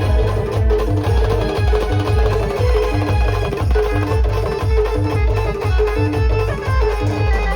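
Indian live band playing an instrumental passage: a heavy, steady drum beat under a repeating melody line, with no singing.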